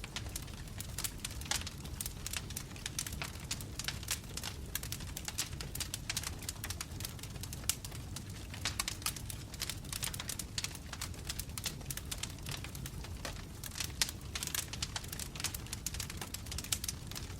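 Wood fire in a fireplace crackling: a steady low rush of burning logs with dense, irregular pops and snaps.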